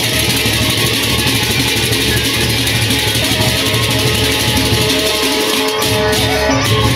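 A Sasak gendang beleq gamelan ensemble playing an old tune. Many pairs of hand cymbals clash together in a dense, continuous shimmer over steady gong and drum tones. The low notes briefly drop out about five and a half seconds in.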